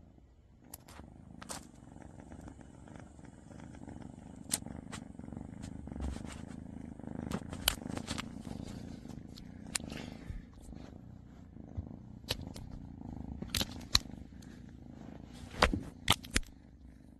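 A domestic cat purring steadily, close to the microphone, with scattered sharp clicks and rustles.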